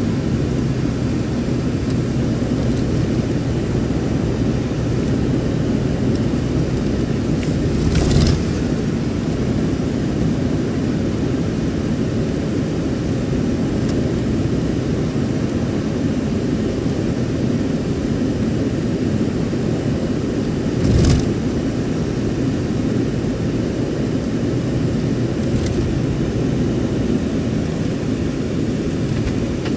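Steady road and engine noise heard inside a moving car's cabin. Two brief thumps stand out, about a quarter of the way in and again about two-thirds of the way in.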